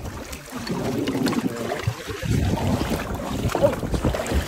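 Wind on the microphone and water sloshing against the side of a small boat, an irregular low rumble with scattered splashy sounds.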